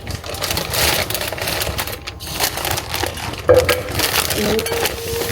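Dense rustling, crackling handling noise made of many small rapid crackles, with a brief steady tone in the middle range about three and a half seconds in.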